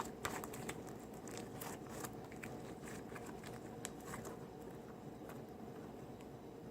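Glittery homemade slime being squeezed and stretched by hand, giving faint sticky clicks and crackles, thick at first and thinning out after about four seconds.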